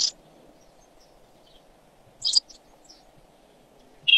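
Jackdaws calling: three short, high-pitched calls roughly two seconds apart, over faint background noise.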